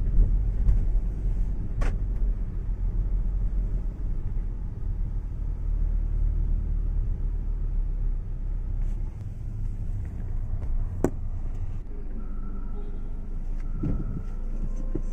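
Steady low engine and road rumble heard inside the cabin of a Suzuki car driving slowly, with a sharp click about two seconds in and another near eleven seconds.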